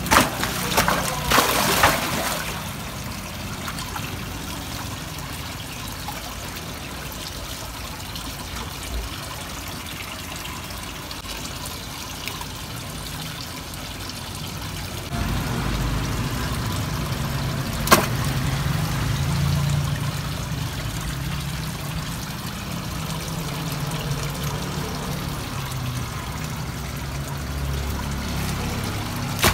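Water trickling and splashing steadily into a fish pond, with a few loud splashes in the first two seconds and one sharp click about eighteen seconds in.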